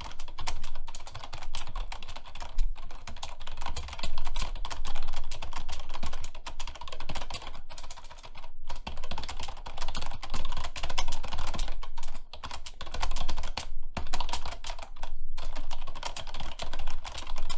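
Fast, hard typing on a computer keyboard: a dense, rapid stream of key clicks with a few brief pauses.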